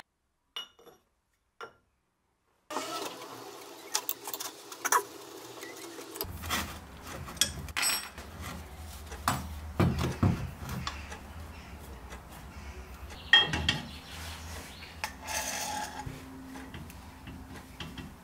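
Steel parts of a small-wheel belt-grinder attachment handled and fitted together on a workbench: scattered clinks and knocks of metal, starting about three seconds in after a near-silent opening. A steady low hum comes in about six seconds in.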